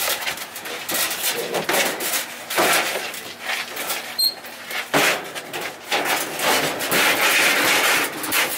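A stainless-steel gas grill being heaved and shoved into a pickup bed: irregular metal clunks and scraping, with two sharp knocks, one a few seconds in and another about halfway.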